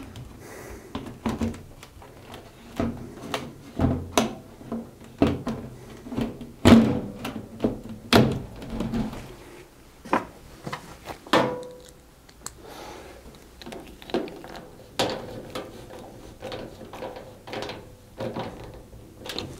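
Washing machine top panel being lowered onto the cabinet and knocked into place: a series of separate thunks and knocks, the loudest about 7 s in and a ringing one about 11 s in, followed by lighter handling clicks as the screws at the back are fitted.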